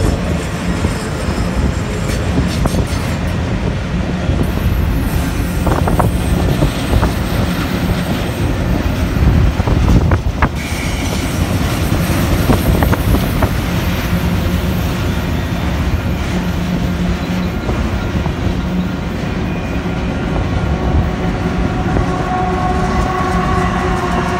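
Loaded autorack freight cars rolling past at close range: a steady, loud rumble and clatter of steel wheels on the rails. Near the end, a set of steady tones joins in as the train's rear diesel locomotive draws level.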